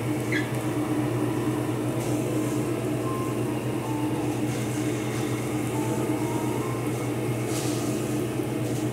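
Steady hum of a kitchen range hood fan running over the stove.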